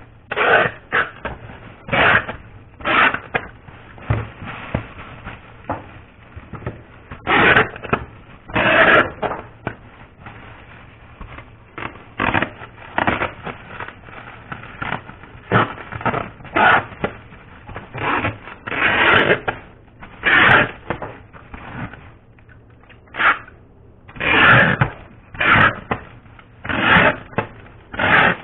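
Foil wrappers crinkling and rustling in short, irregular bursts as chocolates are wrapped by hand.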